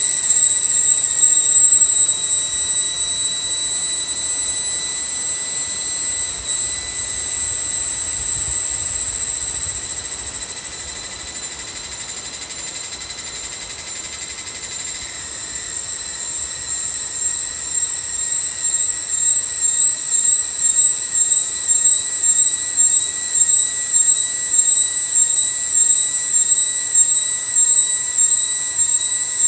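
Loud chorus of forest insects: a steady, high-pitched drone that turns into a fast, even pulsing about halfway through.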